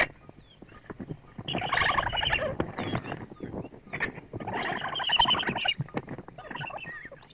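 Vultures calling as they feed at a carcass, in bursts loudest around two and five seconds in, with short knocks between.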